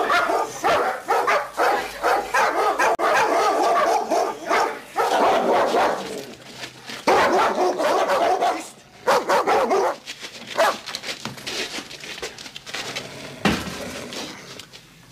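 Dog barking and yelping over and over, densest in the first half and thinning out after about ten seconds.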